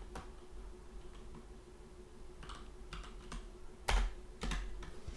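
A few scattered keystrokes on a computer keyboard as code is typed, the loudest about four seconds in, over a faint steady hum.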